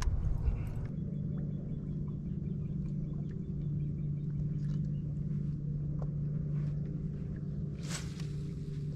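A boat motor running with a steady low hum that sets in about a second in. There is a brief sharp noise near the end.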